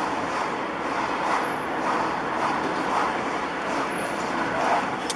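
Moving car's steady tyre and engine noise on a multi-lane road.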